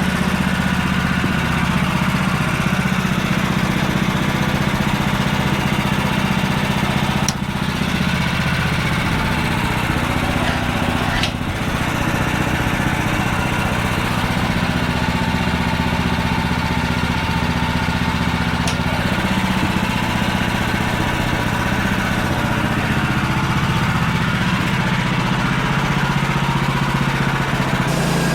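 Small gas engine of a portable bandsaw sawmill running steadily while milling a utility pole, with two brief clicks about seven and eleven seconds in.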